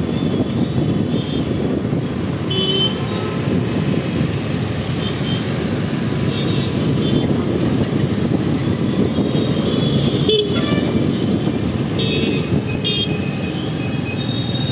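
Busy city traffic heard from a moving motorcycle: a steady rumble of engines and road noise, with short vehicle-horn toots several times.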